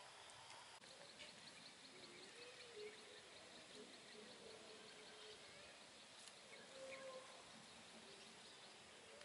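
Faint rural outdoor ambience of insects and birds, with a rapid run of high chirping ticks, about five a second, from about one second in until about five seconds in, and a few faint short calls.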